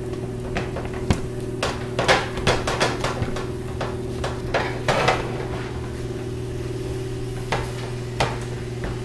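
A black spatula taps and scrapes against a nonstick skillet while breaking up raw ground meat, in irregular clusters of knocks over a steady low hum.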